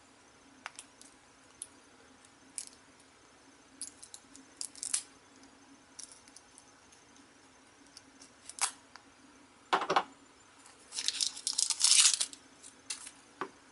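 Small clicks and scratches of a hobby knife blade slicing the tape on a plastic toy capsule ball, then a louder snap just under ten seconds in as the capsule comes apart, followed by loud crinkling of a thin plastic bag being pulled out.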